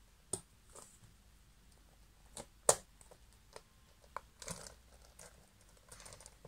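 Scattered small clicks, taps and brief rustles of a cardboard game spinner being handled as its pointer is pushed back onto the disc, the sharpest click a little before halfway.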